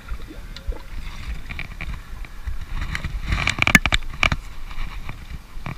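Steady low rumble of wind and the trolling boat. A quick cluster of clicks and knocks comes a little past halfway as a spinning rod and reel are grabbed and handled.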